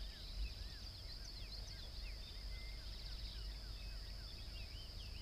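Several birds chirping and calling, many short rising and falling notes scattered throughout, over a steady high-pitched hiss and a low rumble.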